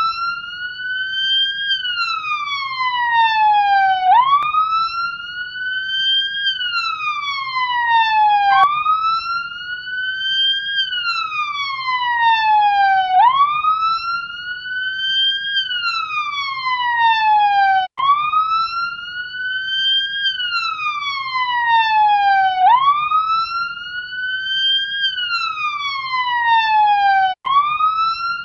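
Ambulance siren in wail mode: each cycle the pitch climbs quickly, then falls slowly back down, repeating about every four and a half seconds over a faint low noise. The sound cuts out for an instant twice.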